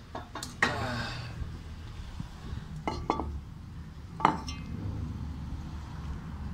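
Steel wheel hub and a broken piece of bearing race clinking against metal as they are handled: a few sharp ringing clinks, the loudest about four seconds in, over a steady low hum.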